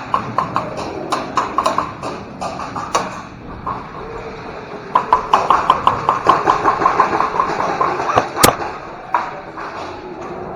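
Airsoft guns firing: scattered shots over the first three seconds, then a rapid burst of fire from about five to eight seconds in, and one sharp crack just after.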